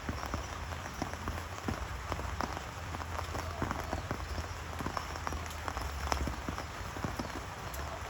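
Steady rain falling, with many separate drops tapping sharply on a surface over a low rumble.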